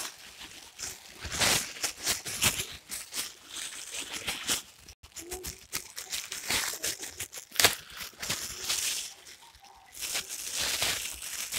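Woven plastic rice sack rustling and crinkling as a hand grips and folds its mouth, in irregular scraping strokes, with one sharp crackle about two-thirds of the way in.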